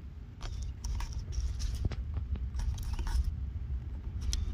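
Fillet knife cutting through a flathead catfish's head, with scattered small clicks and scrapes as the blade works through the flesh and bone, over a steady low rumble.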